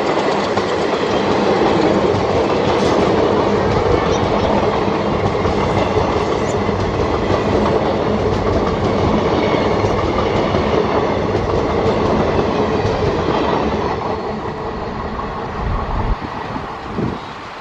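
Passenger train rolling past at speed, a steady loud rumble of its coaches on the rails that begins to fade about fourteen seconds in, with a couple of short thumps near the end.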